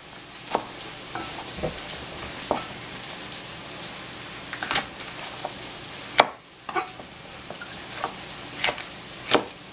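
A chef's knife knocking on a plastic cutting board as heads of baby bok choy are halved lengthwise, a sharp click about every second at uneven intervals. Under it runs a steady hiss of oil sizzling in a pan.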